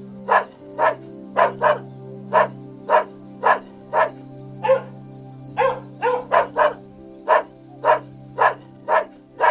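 Dog barking repeatedly in short, sharp barks, about two a second, with a quicker run of barks around the middle, over a steady background music drone.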